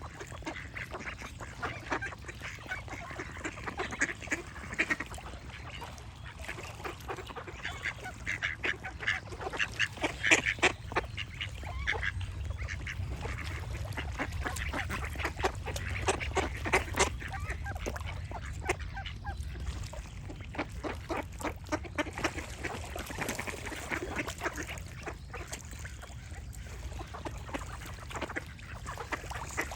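Ducks quacking in irregular runs of short, rasping quacks, busiest about a third of the way in and again around the middle, with a low rumble underneath through the middle stretch.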